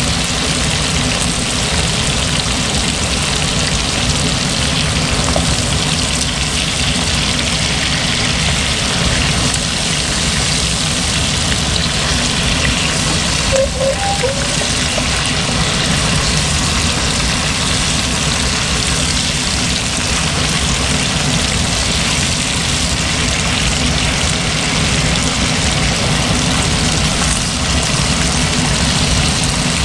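Chicken wings sizzling steadily as they fry in oil in a stainless steel wok, over a steady low hum. A few light clinks of chopsticks against the wok come about fourteen seconds in, as the wings are turned.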